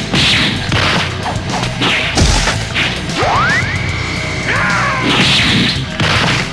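Fight sound effects over a music track: hits and whooshes, then a rising whine that holds steady as an energy blast charges and falls away, followed by a crashing impact.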